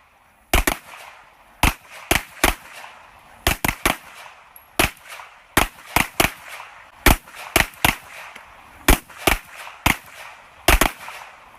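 Semi-automatic pistols fired by several shooters at once, about twenty sharp shots in an uneven, overlapping string, some in quick pairs.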